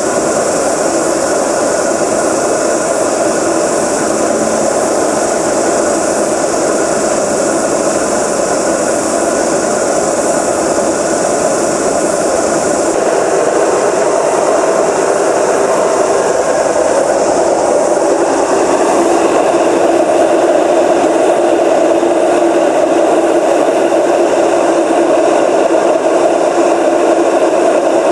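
Indesit WR830 washing machine running its universal motor and turning the drum: a loud, steady mechanical whirring drone that grows a little louder about halfway through.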